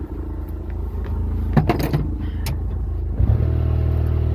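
A Kubota's engine running steadily, with a few knocks about a second and a half in. A little after three seconds the engine note rises and gets louder.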